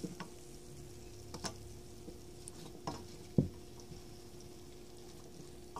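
Silicone spatula stirring cubed potatoes, carrots and cauliflower into a spiced gravy in a hot pan: soft scrapes and a few light knocks, the loudest about three and a half seconds in, over a faint steady hum.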